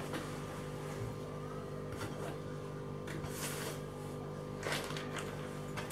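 Steady low hum of background room noise, with a few faint rustles and knocks from someone rummaging off-frame for a tape measure.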